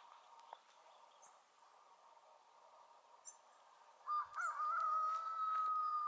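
A rooster crowing about four seconds in: a single crow of about two seconds, with a few broken notes at the start and a long held note that falls away at the end. Faint high bird chips sound now and then over a steady background hum.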